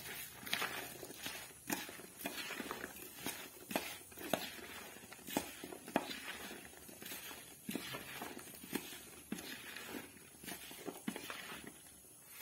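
Steel spoon scraping and clicking against a bowl as chopped okra is tossed in a dry coating of cornflour, gram flour and spices, in repeated irregular strokes about two a second.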